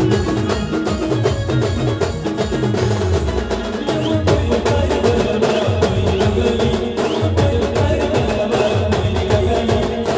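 Band music: a steady, repeating drum beat under a held melodic line, playing without a break.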